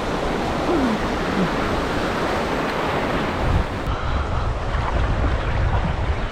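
Surf washing in with wind buffeting the microphone, the low wind rumble growing heavier about halfway through.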